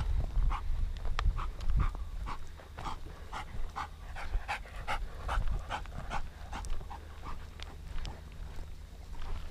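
Dog panting hard and fast, about three breaths a second.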